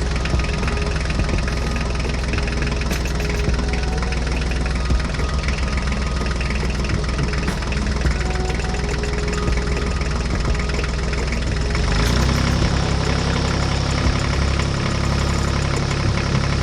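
An engine running steadily at idle with a knocking rhythm. About twelve seconds in its tone shifts, and near the end its pitch starts to rise.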